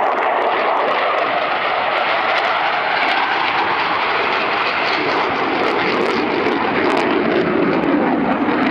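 Loud, steady jet noise from an F/A-18 Hornet's twin General Electric F404 turbofan engines as the fighter flies overhead.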